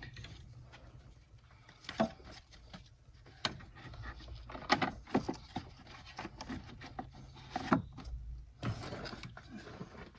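Scattered plastic knocks and clicks from a panel air filter being handled and set into its plastic air filter box, with light rustling in between.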